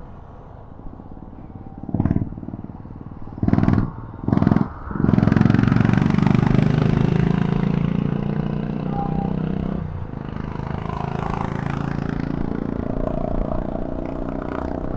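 Motorcycle engine revved in three short throttle blips, then held at high revs for several seconds. It drops back briefly about ten seconds in and then keeps running.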